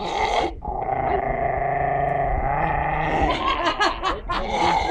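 Black mutt growling and snarling with bared teeth: a long continuous growl after a short opening snarl, wavering a little near the end.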